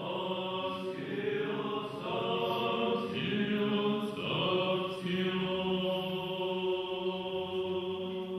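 Orthodox liturgical chant: long sustained sung notes that shift in pitch a few times, sung during the rite of raising a monk to the rank of hegumen.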